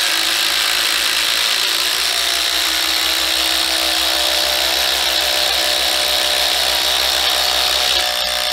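Two cordless impact drivers, a DeWalt DCF850 Atomic and a DeWalt DCF887 XR, hammering continuously under load as they drive 12-inch fasteners into wood.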